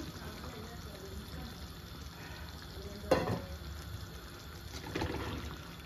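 Coconut-milk curry sizzling and bubbling steadily in a clay pot on a gas burner, just after thick coconut milk has been poured in. A sharp knock comes about three seconds in, and a softer one near five seconds.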